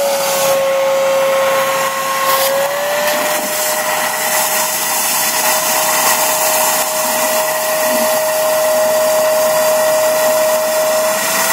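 Wet/dry shop vac running at full speed, sucking standing rainwater out of a fence post hole through its corrugated hose. A steady whine over a loud rushing hiss, the pitch stepping up slightly about two and a half seconds in.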